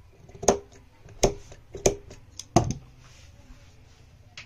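Large tailor's shears cutting through cotton fabric: four snips about two-thirds of a second apart, each ending in a sharp click as the blades close. Softer handling of the cloth follows.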